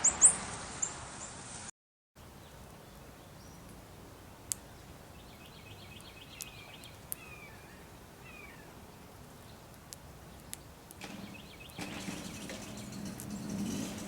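Small birds at a feeder giving short, falling chirps now and then, with a few sharp clicks, over faint outdoor hiss. The first second and a half is a separate, louder sound that ends in a sudden cut.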